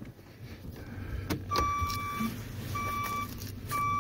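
Electronic warning beeper on an idling pickup truck, starting just after a click about a second and a half in and repeating about once a second, each beep about half a second long.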